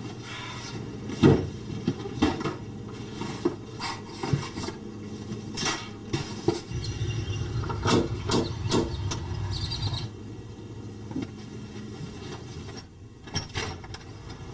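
Household knocks and clatter over a steady low hum, the loudest a sharp thump about a second in. About eight seconds in, a brass door knocker is rapped three times against the door.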